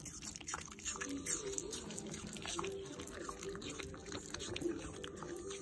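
Shiba Inu crunching and chewing a piece of apple: a run of crisp, wet crunches and mouth clicks, many to the second.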